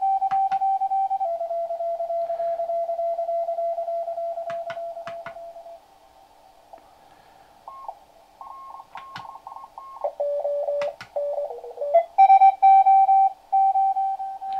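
Morse code (CW) signals on the 40 m amateur band received by a QRP-Labs QCX-Mini transceiver and played through a small amplified speaker as the band is tuned. A held tone fades away; then several keyed signals at different pitches come and go, their pitch shifting as the tuning knob turns. A strong, loud keyed signal comes in near the end, with a few sharp clicks along the way.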